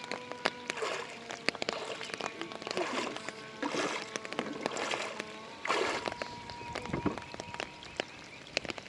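Water sloshing and splashing in repeated surges about a second apart, with scattered sharp clicks and a faint steady hum underneath.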